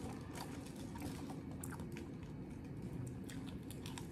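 A person chewing and biting into a beef sandwich close to the microphone, with many small, scattered mouth clicks.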